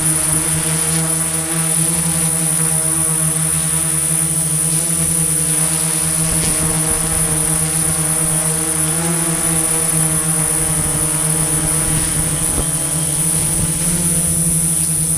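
Construction machinery engine running steadily at a constant speed, its pitch wavering slightly now and then.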